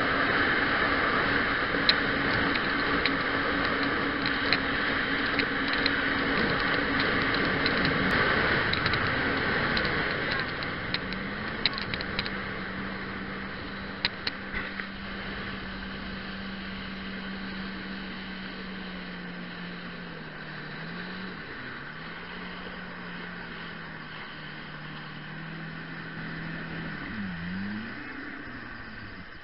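Jet ski engine running fast with water rushing past. About ten seconds in, the throttle is eased and the engine drops to a lower, steady drone, as when slowing down. Near the end the pitch dips and rises briefly a couple of times with small throttle changes.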